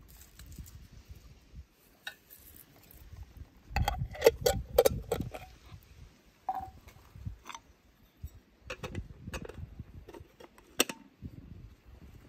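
Clinks and knocks of a glass jar, its lid and small metal teapots being handled for brewing tea: a quick run of sharp clinks about four seconds in, the loudest part, then scattered single clinks and taps.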